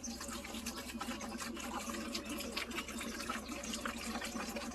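White vinegar being poured from a gallon jug into a pump sprayer tank: a steady run of liquid splashing and gurgling, without a break.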